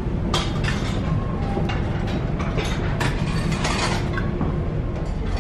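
Irregular clinks and clicks of crockery and serving utensils, over a steady low rumble from the ferry's engines.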